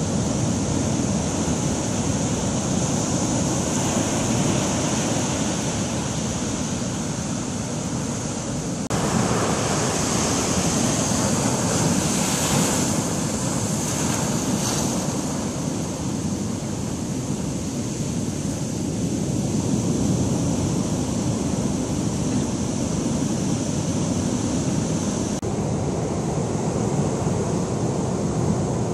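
Heavy Pacific storm surf: big waves breaking continuously among rocks, with a low steady rush and wash running up the sand, swelling louder about nine seconds in.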